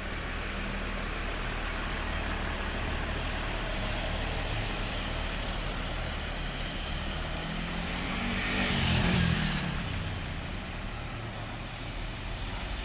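Road traffic: a motor vehicle's engine runs steadily, and about eight seconds in another vehicle passes close by, its engine note bending as it goes past.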